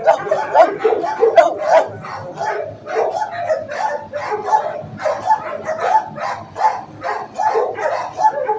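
Dogs in shelter kennels barking continuously, several overlapping barks a second.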